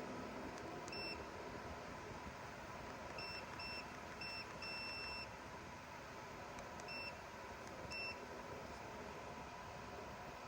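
Short electronic beeps from a 24V rooftop air conditioner's controls, about seven of them with one longer beep in the middle, as buttons are pressed. Under them the unit runs with a steady fan noise.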